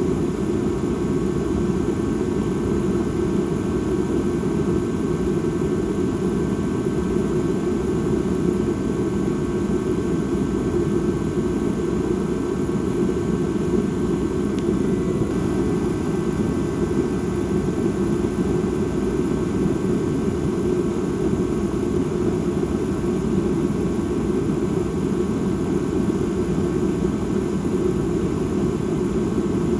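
Dark ambient drone: a steady, low rumbling hum that holds without change.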